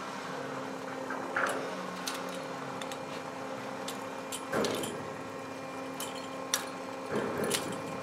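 An engine running steadily, with several metal clanks and knocks from chain-slung steel sections being lifted and guided into place, the loudest about a third of the way in, just past halfway, and near the end.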